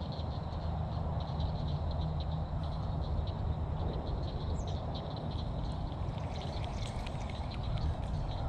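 Pond-side outdoor ambience: a steady low rumble with many short, high-pitched animal chirps scattered through it, more of them in the second half.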